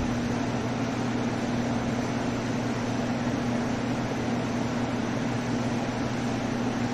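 An electric machine running steadily: a constant whooshing drone with a low hum.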